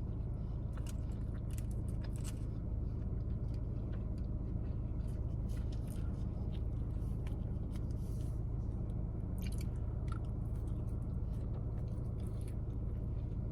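Close-miked chewing of Parmesan fries: soft wet mouth clicks and smacks scattered throughout, over a steady low hum.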